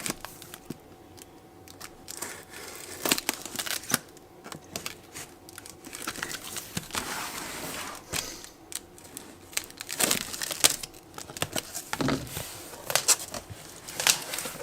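Packaging of a power-tool kit box being opened and handled: irregular rustling, crinkling and tearing with sharp clicks and knocks.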